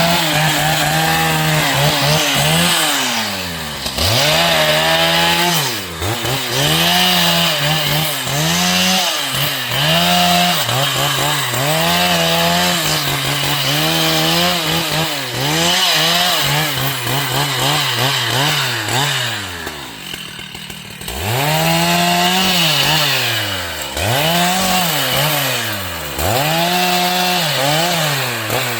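Gas chainsaw engine revved to full throttle and let back down again and again, about every two seconds. It holds at high revs briefly each time and drops near idle for a moment about two-thirds of the way through.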